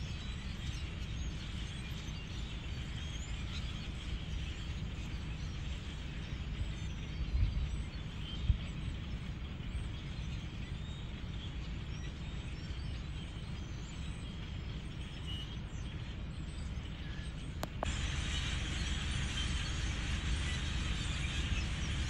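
Outdoor ambience with the dense, distant chatter of a large flock of blackbirds over a low wind rumble, with a couple of low thumps about 7 and 8 seconds in. Near the end the sound steps up louder and brighter after a click.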